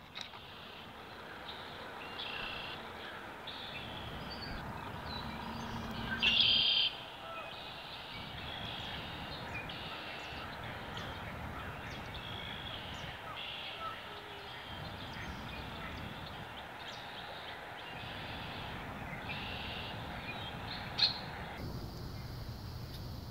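Several wild birds chirping and calling, a few short calls at a time over steady outdoor background noise, with one louder call about six seconds in.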